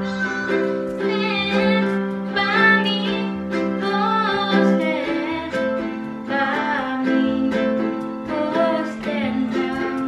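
Ukulele strummed in chords with a woman singing along.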